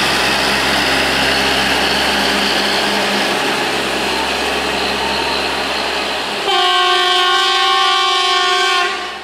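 Diesel engine of a Plasser 09-32 CSM track-tamping machine running steadily as it moves away along the line. About six and a half seconds in, a loud multi-tone horn sounds and holds for about two and a half seconds.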